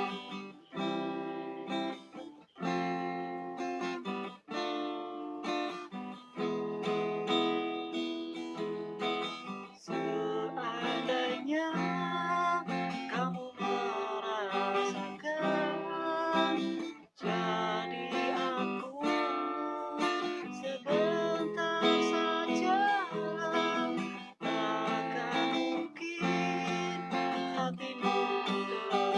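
Acoustic guitar music: strummed chords changing every second or two, with a wavering melody line over them in a few places.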